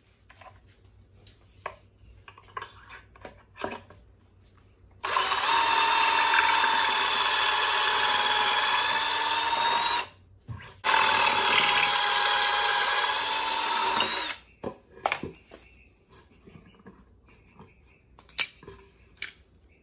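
Cordless drill boring pocket holes in plywood through a pocket-hole jig. It runs in two long, steady spells with a whine, the first about five seconds and the second about three and a half, with a brief stop between them. Before and after come light knocks of the jig and board being handled.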